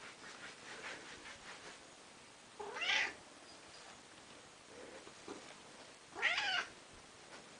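Domestic cat meowing twice, about three and a half seconds apart, each a short call that rises in pitch.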